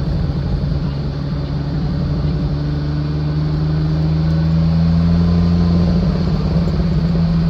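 Car engine running as the car drives, heard from inside the cabin, rising in pitch and getting louder about halfway through as the car accelerates.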